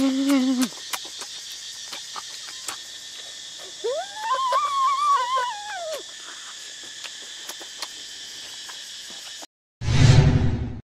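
Steady high buzz of forest insects with small mouth clicks, and a child's drawn-out vocal sound that rises and falls about four seconds in, while eating. Near the end the forest sound cuts off and a loud, one-second intro sound effect plays.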